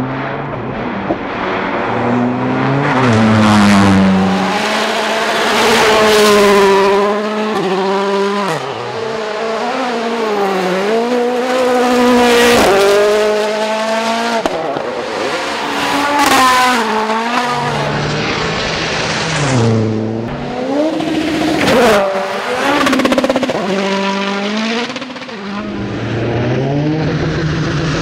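2015 World Rally Cars, with 1.6-litre turbocharged four-cylinder engines, passing flat out on gravel stages one after another. Each engine revs hard, its pitch climbing and dropping again and again with the gear changes.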